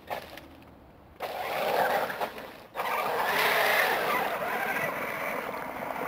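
Electric Traxxas E-Maxx RC monster truck driving through shallow swamp water, its motors running and tires churning and splashing the water. The noise starts about a second in, drops briefly, and comes back louder.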